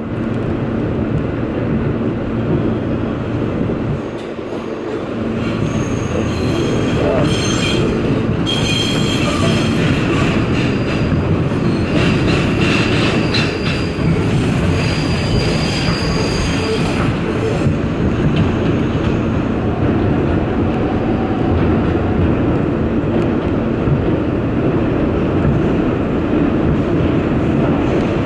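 R160B Siemens subway train running through a tunnel, heard from inside the car: a steady loud rumble of wheels on rail, with high metal squealing from about seven to seventeen seconds in.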